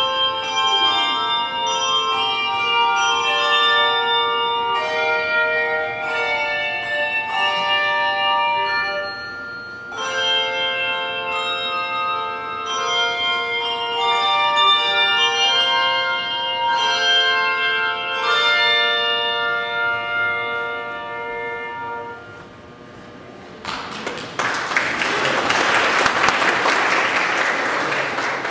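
Handbell choir playing, many bells struck together and left to ring in chords; the last notes fade out about 22 seconds in. Then the audience applauds.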